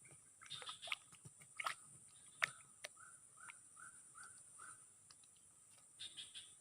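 Scattered sharp clicks and crackles of close-up handling, the loudest about two and a half seconds in, over a steady high insect drone. In the middle, an animal gives a run of short rising chirps, about three a second.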